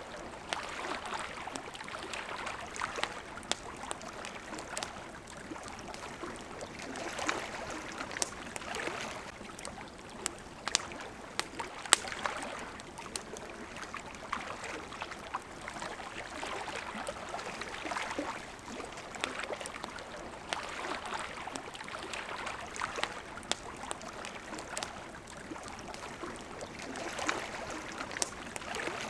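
Campfire crackling with scattered sharp pops, over water lapping in gentle swells every few seconds.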